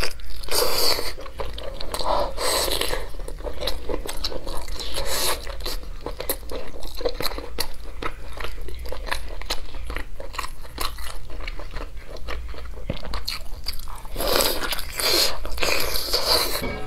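Close-miked eating of a glazed chicken drumstick: biting into the meat and chewing, with many small wet mouth clicks. Louder bites come about a second in, around two to three and five seconds, and again near the end.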